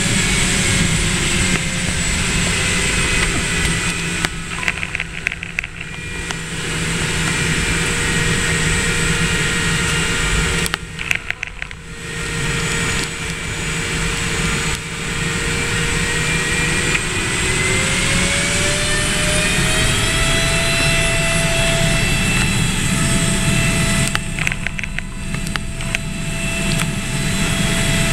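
Single-engine ski-plane's engine and propeller heard from inside the cabin, a loud steady drone whose pitch climbs about two-thirds of the way through as power comes up for takeoff. The level dips briefly a few times.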